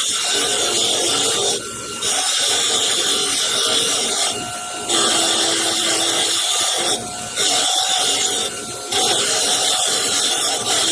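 Motor-driven wire wheel scrubbing surface rust off a pair of steel needle-nose pliers: a steady, loud, high scratching hiss that eases off briefly four times as the work comes off the wheel.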